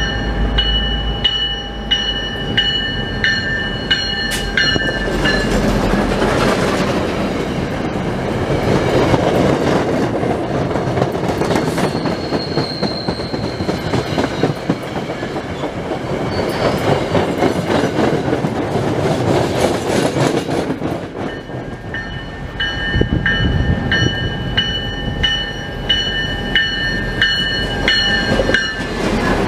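A train running through the station, its wheels clattering over the rail joints. A bell-like ringing repeats about twice a second at the start and again near the end, typical of a grade-crossing bell.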